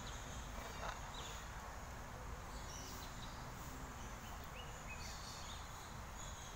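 Quiet outdoor ambience: a steady low background noise with scattered faint, short, high chirps of small birds.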